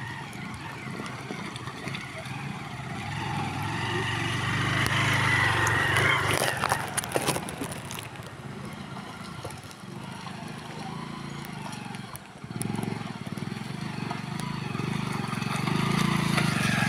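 Motorcycle engines running at low speed as the bikes pick their way through deep mud ruts. One grows louder and passes about five or six seconds in; another gets steadily louder as it approaches near the end.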